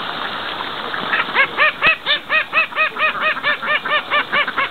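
A domestic duck quacking in a fast, even run of about sixteen calls, some four or five a second, starting about a second in.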